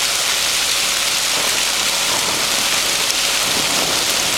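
Hailstones, pretty good size, falling steadily in a dense, even hiss with scattered ticks of stones striking.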